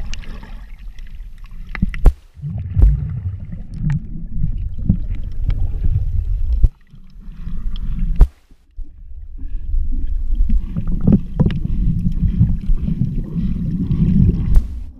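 Muffled underwater sound heard through a waterproof camera housing: a low rumble of moving water with scattered sharp clicks and knocks. It drops nearly to nothing for about two seconds past the middle, broken by one sharp click.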